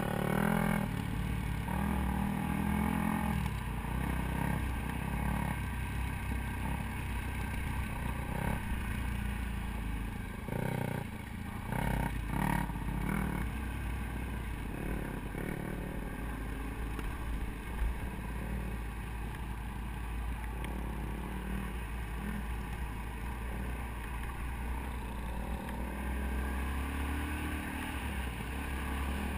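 Dirt bike engine running and revving up and down through the gears while riding a dirt trail, heard from on the bike, with a heavy rumble of wind on the microphone.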